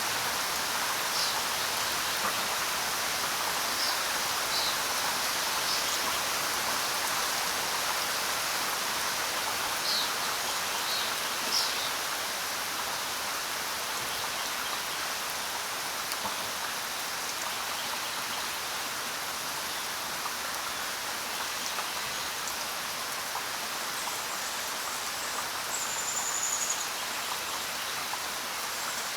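Steady rain falling on the ground: an even, unbroken hiss of many drops, with a few brief higher ticks here and there.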